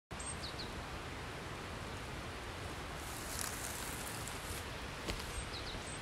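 Steady outdoor background noise with a few short, high bird chirps near the start and again near the end. A brief crunch of a footstep on gravel comes about five seconds in.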